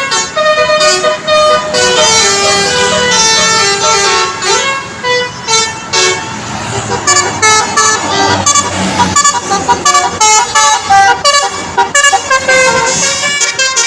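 Bus 'telolet' multi-tone melody horn (Basuri type) playing a tune of stepped notes, which turn quicker and choppier about halfway through.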